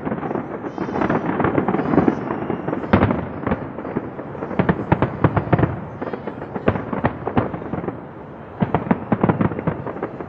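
Fireworks display going off: a rapid, continuous run of bangs and crackles. It thins out briefly near the end, then picks up again.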